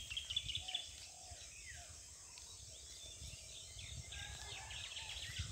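Faint birds chirping and calling in the countryside over a low uneven rumble.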